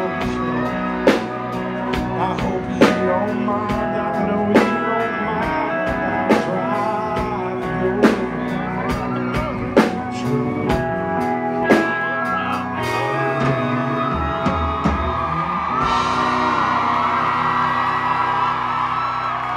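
Live country band playing a slow song with singing, pedal steel, guitars, bass and drums, the drum hitting hard about every two seconds. About two-thirds of the way through the drumbeat stops and a steady held sound carries on.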